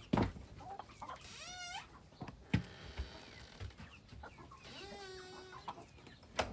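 Chickens clucking, with two drawn-out wavering calls, one about a second in and a longer one past the middle. A few sharp knocks, louder than the calls, near the start and about two and a half seconds in.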